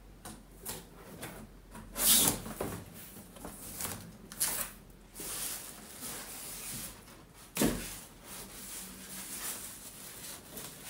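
A large cardboard box being opened and unpacked: flaps bent back and plastic packing rustled and lifted out, in irregular scraping bursts, with a sharp knock about seven and a half seconds in.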